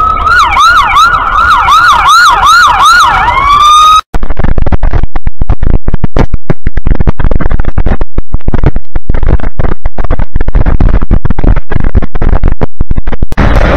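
Emergency-vehicle siren on its fast yelp setting, sweeping up and down about three times a second. About four seconds in it cuts off abruptly and a loud, distorted crackling rumble takes over.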